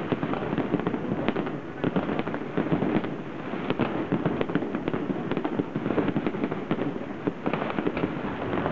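Fireworks display going off: a dense, unbroken run of sharp bangs and crackles, many per second, over a low rumble.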